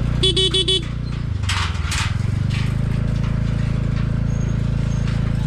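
Scooter horn beeped four times in quick succession, then the scooter's engine running at low speed, with a couple of metallic clanks as it rolls over the steel deck of a suspension bridge.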